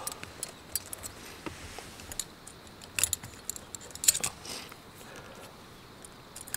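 Light metallic clicks and clinks of thin steel wire rods being fitted into the hub of a ThousWinds tripod stand, coming irregularly, with the sharpest clinks a little after three and four seconds in.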